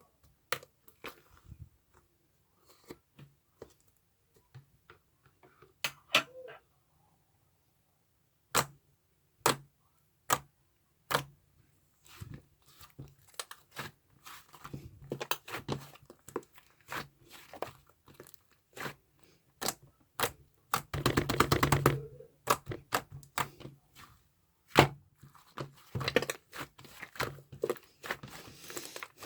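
Handling sounds of chocolate milk with marshmallows being made: sharp separate clicks and taps, a dense crinkling burst about 21 seconds in, and more tapping and crunching near the end.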